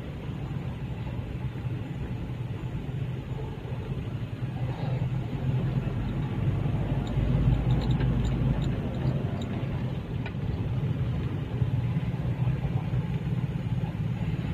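Steady low rumble of a car engine and traffic, growing louder about halfway through.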